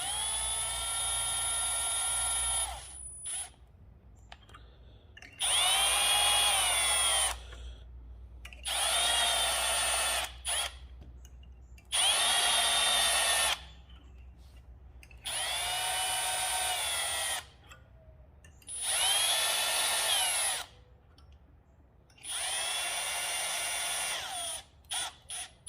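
Cordless drill driving brass cup hooks into a wooden board, a hook chucked directly in the drill, in seven short runs of about two seconds each with brief pauses between. The motor's whine dips in pitch at the end of each run, with small clicks in the pauses.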